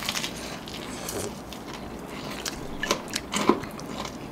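Crunching bites and chewing of crispy-coated spicy fried chicken close to the microphone: a scattering of short, sharp crackles among quieter mouth sounds.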